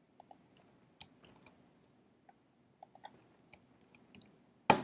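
Faint, scattered clicks of a computer keyboard and mouse while a spreadsheet formula is typed in: a dozen or so light taps at uneven spacing, with one louder click near the end.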